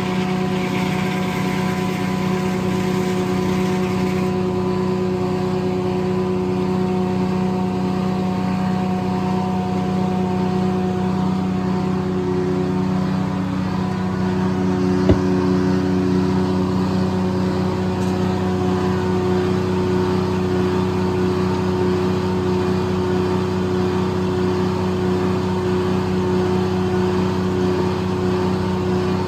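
Corley circle sawmill running, a steady engine drone with a higher hiss over it that stops about four seconds in. One sharp knock comes about halfway through.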